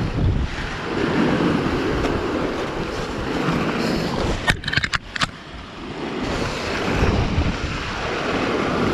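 Sea surf surging and washing through gullies between rocks, with wind buffeting the microphone. A quick cluster of sharp clicks comes about halfway through.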